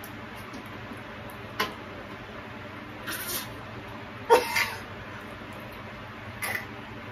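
Slurping and spluttering of water being drunk from plastic bottles through cheek retractors that hold the mouths wide open: a short click about a second and a half in, then a few short wet bursts, the loudest just past four seconds and another near the end.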